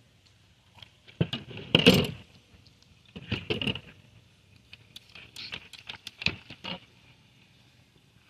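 A knife cutting and scraping along a sheephead's scaled skin and bones, and the fish being handled on the cleaning table. Three short clusters of scrapes, clicks and knocks, the loudest about two seconds in.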